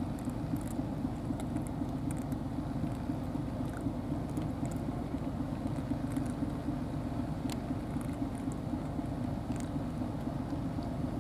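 A steady low mechanical rumble, like an engine running, with faint scattered clicks of cats crunching dry food close by.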